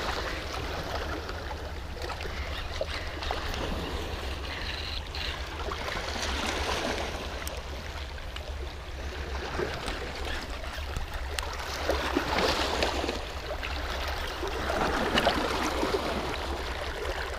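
Small waves washing and lapping against the rocks of a breakwater, swelling every few seconds.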